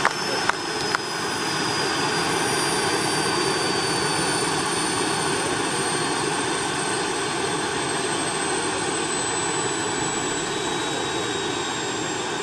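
Model gas-turbine engine of a radio-controlled Mi-24 Hind helicopter running, a steady rushing roar with a high whine that slowly drops in pitch. A couple of sharp clicks come in the first second.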